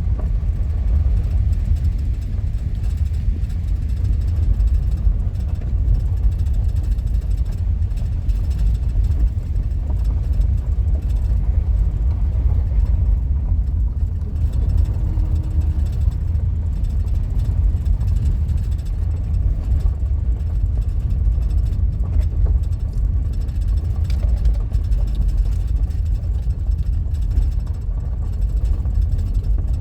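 Minivan driving on an unpaved road, heard from inside the cabin: a steady low rumble of engine and tyres.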